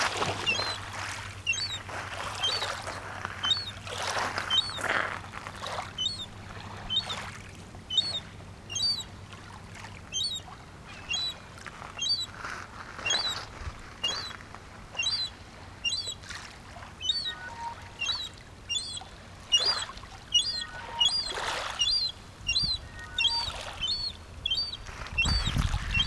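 A gull, likely the juvenile, giving a short, high piping call over and over, about one to two calls a second.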